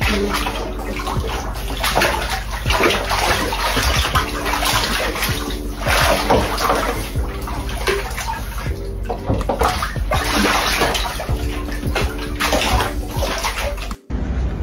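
Otters splashing and sloshing water as they wrestle and swim in a small pool, in irregular surges, with music underneath; the sound breaks off briefly near the end.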